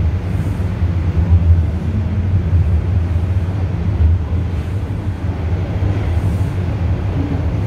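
Toronto Rocket subway train running through a tunnel, heard from inside the car: a steady low rumble of the moving train.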